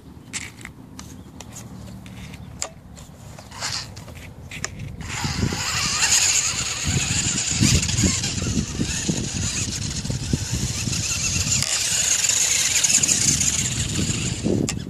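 Clicks and taps from handling the wiring and receiver of a homemade radio-controlled 4x4 truck, then from about five seconds in the truck's drive running with a steady loud whirring hiss as it crosses the grass.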